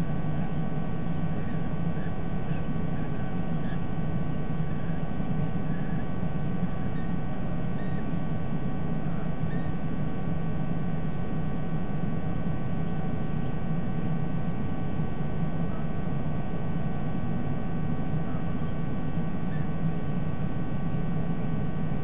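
Steady electrical hum and hiss from a remote nest camera's audio feed, with a few faint, short bird chirps scattered through it and a slightly clearer call at the very end.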